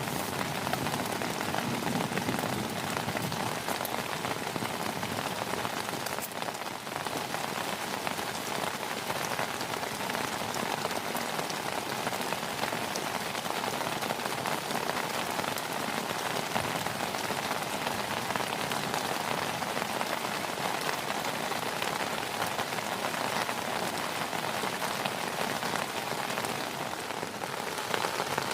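Heavy rain falling steadily: a dense, even hiss of countless drops striking a surface.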